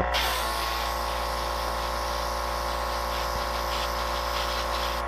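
Airbrush spraying paint: a steady hiss of air that starts at the outset and stops sharply about five seconds in. Under it runs the constant hum of a small electric motor.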